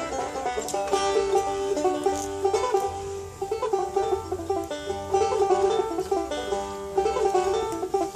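Resonator banjo being finger-picked: a steady stream of quick plucked notes.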